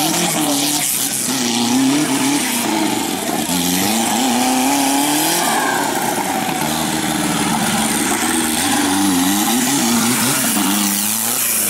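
Off-road race buggy's engine revving hard, its pitch rising and falling again and again as the throttle is worked, over a steady hiss.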